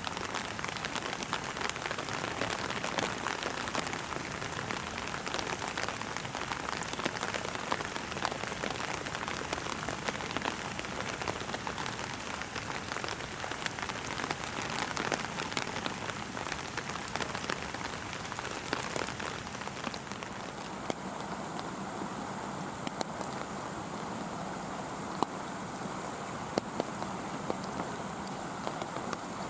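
Steady rain, a dense patter of many small drops hitting surfaces. About two-thirds of the way through, as the scene moves indoors, it turns into a duller, narrower hiss with a few sharp ticks.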